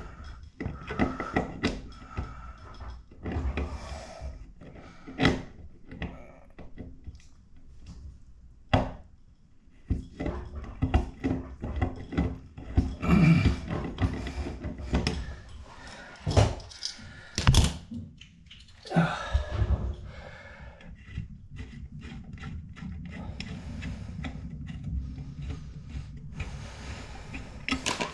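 Irregular clicks, knocks and scrapes of a hand tool working in a metal drain fitting, digging at a slow drain clogged with debris.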